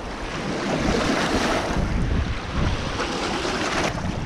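Canal water washing over the stones at the bank's edge, with wind buffeting the microphone.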